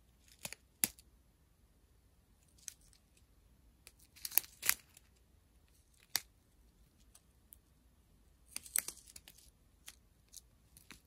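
Small plastic bags of diamond-painting drills being handled, crinkling in short scattered rustles and clicks. The busiest handling comes about four and a half seconds in and again near nine seconds.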